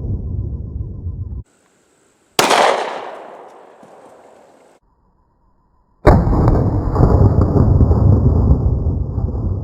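A single Glock 20 10mm pistol shot about two and a half seconds in, a sharp crack that rings away over about two seconds. Heavy low rumbling comes before it and starts again suddenly about six seconds in, with dead silence cutting in between.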